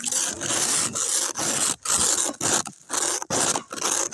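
Snow being scraped in quick repeated strokes, about two a second, each a rasping scrape with a short break between.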